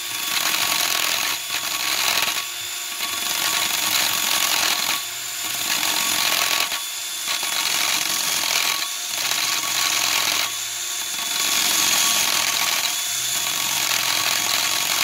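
Makita variable-speed hand drill turning a case-boring cutter that is cutting into the aluminium cylinder opening of a GY6 150cc (157QMJ) scooter engine case, enlarging it for a big-bore kit. A steady drilling and scraping that eases off briefly every couple of seconds.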